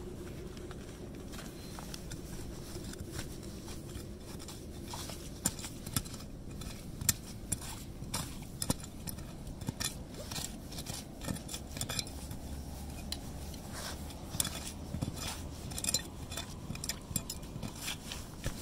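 A steel digging knife chopping and scraping at frozen ground under icy wood-chip mulch: an irregular run of sharp clicks, chips and scrapes of metal on ice and frozen soil.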